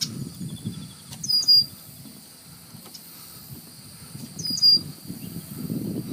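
A bird calls twice, a short high call each time, about three seconds apart. A low rumbling noise runs underneath.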